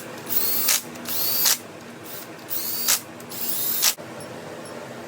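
Handheld electric power tool run in four short bursts, its motor whine climbing in pitch each time it spins up, as fasteners are run down on a K-series engine's bottom end.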